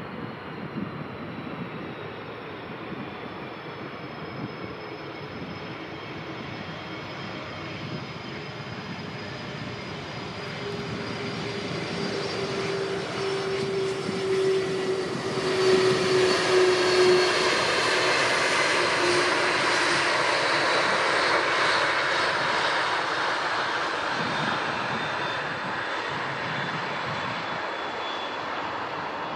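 Jet airliner on approach to land, passing by: the engine noise grows louder through the first half, peaks a little after the middle, then eases off. High whining tones and a lower hum slide slowly downward in pitch as it passes.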